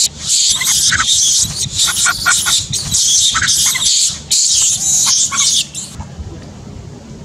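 Young long-tailed macaque screaming, loud and shrill, in several long bouts as an adult bites and pins it: distress screams of a monkey under attack. The screaming stops about six seconds in.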